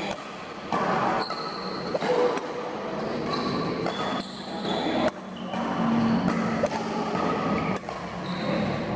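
Doubles badminton rally: rackets hitting the shuttlecock again and again, about a second or so apart, with short high squeaks of shoes on the court floor between the hits.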